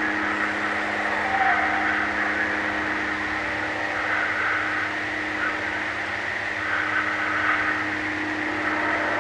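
Night-time swamp ambience: a steady, even chorus with a low constant drone beneath it. No distinct howl or scream stands out.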